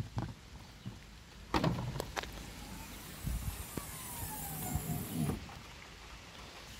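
Opel Adam's tailgate being released at the handle under its badge and swung open: a latch click at the start, two sharp clunks about a second and a half in, then a soft hiss that stops about five seconds in.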